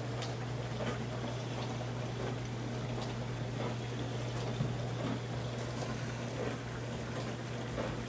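ecozy portable countertop dishwasher running a wash: a steady low pump hum with water splashing inside the tub.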